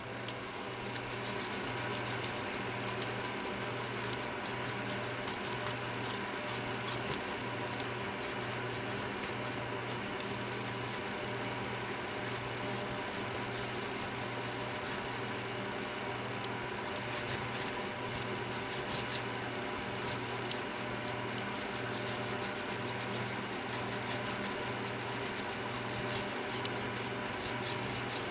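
A brush scrubbing grimy plastic phone handset parts in rapid back-and-forth strokes, a continuous scratchy rubbing sound.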